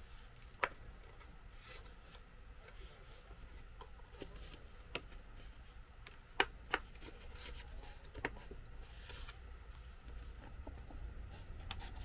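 Square of origami paper being folded and creased by hand: soft rustling of the sheet, broken by a handful of short, sharp paper crinkles.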